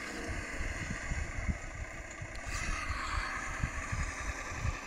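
Electric drive motor and gearbox of a Tamiya Toyota Hilux high-lift RC truck whining steadily as it crawls up a slope of dirt and twigs, over a low gusty rumble of wind on the microphone.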